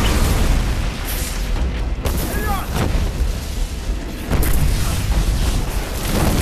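Film battle sound effects: a warship being hit by explosions, with deep booms, a continuous heavy rumble and crashing debris, and a fresh blast about four seconds in.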